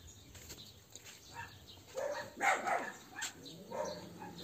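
A dog barking several times, starting about two seconds in.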